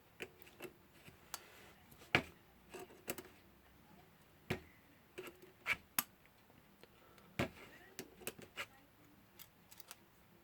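Irregular small clicks and taps of metal alarm-clock movement parts and hand tools being handled and fitted together, with one sharper click about two seconds in.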